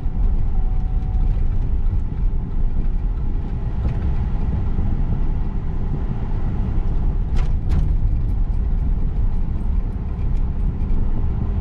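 Road and engine noise heard inside a moving car's cabin: a steady low rumble. Two brief sharp clicks come about seven and a half seconds in.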